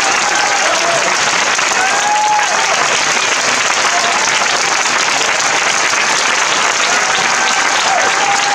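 Theatre audience applauding steadily, with scattered cheers and whoops rising over the clapping.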